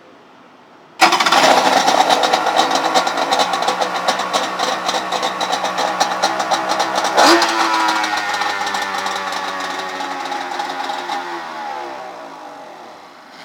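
1995 Polaris SLT 750 jet ski's two-stroke three-cylinder engine bursts into life about a second in and runs, with a short sharp blip of the throttle about halfway through. After that its pitch sinks steadily as it winds down, and it dies away at the end.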